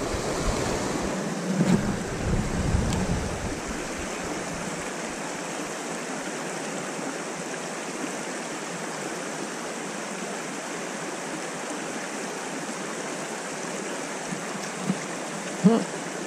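Steady rushing of a shallow river running over rocks in a riffle, with a few brief low rumbles in the first few seconds.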